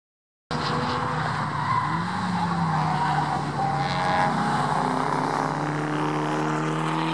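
Track cars' engines running hard through a corner, starting abruptly about half a second in. Several engine notes overlap and shift in pitch, and near the end one rises as a car accelerates out of the turn.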